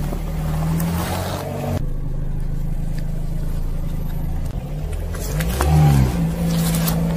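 Car engine running at low speed while a tyre rolls over and crushes biscuits, wafer bars and fruit, with short crunching crackles. The engine note swings briefly just before 6 seconds in.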